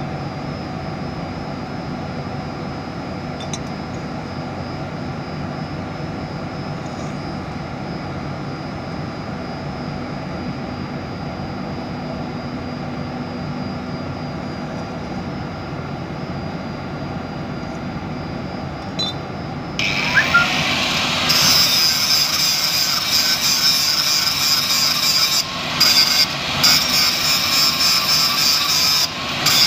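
A steady background hum for about twenty seconds. Then an angle grinder starts abruptly and its cutting disc bites into stainless-steel square box pipe with a loud, high grinding screech. The screech breaks off briefly a few times near the end as the disc is eased out of the cut.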